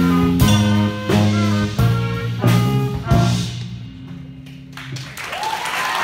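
Live saxophone, trumpet and drum kit playing a swing-style jazz tune in accented hits, which finishes about three seconds in and leaves a low note ringing out. Near the end cheering and applause begin.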